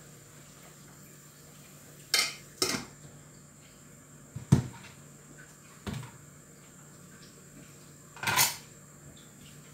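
Aluminium cooking pot and its lid knocking and clanking as they are handled on a gas stove: about five separate metal clanks spread over several seconds, the loudest near the middle.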